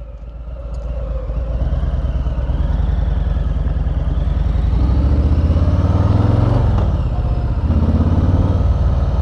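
2020 Harley-Davidson Street Bob's Milwaukee-Eight V-twin pulling under acceleration, getting louder over the first couple of seconds with the pitch climbing. About seven seconds in the pitch drops at a gear change, then climbs again.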